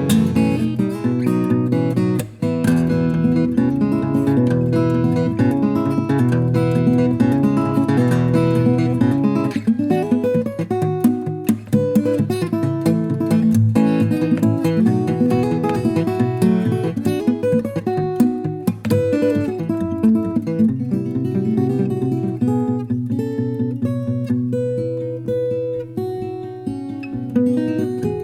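Solo steel-string acoustic guitar played fingerstyle, a Daniel Halleron Model FS with an Italian spruce top and New Guinea rosewood back and sides. Quick picked melody notes run over a steady alternating bass.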